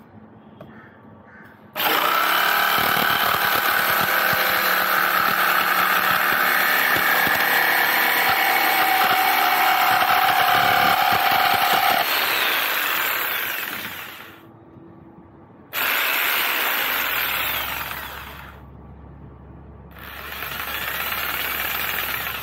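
Ingco 650 W corded jigsaw running and cutting wood. It starts about two seconds in, runs steadily for about ten seconds, then winds down, followed by two shorter runs.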